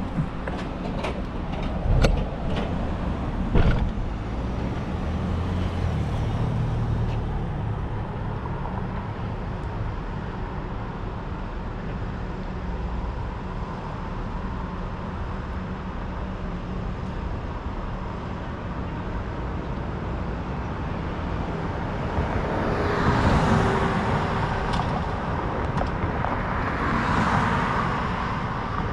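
City street traffic heard from a moving bicycle: a steady rush of road noise, with two sharp knocks in the first few seconds and two cars swelling up and fading as they pass near the end.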